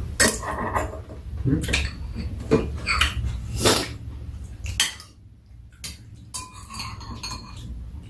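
Metal spoons clinking and scraping against ceramic bowls as two people eat, a string of separate sharp clinks about every half second to a second, over a steady low hum.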